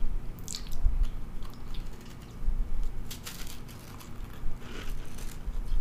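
A person biting into and chewing a baked Pillsbury Cinnamon Toast Crunch cookie, close to the microphone: short crunching crackles about half a second in, again around three seconds in, and near the end.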